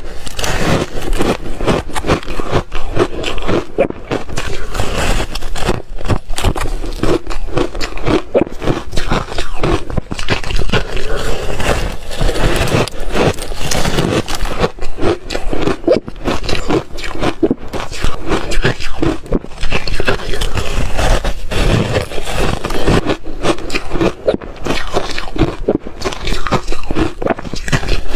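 Close-up crunching and chewing of shaved freezer ice, a dense and loud run of crunches without a pause.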